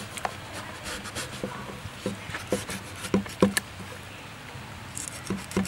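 Steel meat cleaver scraping and cutting a stingray on a wooden chopping block: irregular knocks and scrapes, roughly two a second, as the blade rasps over the skin and taps the block, with a short pause after the middle.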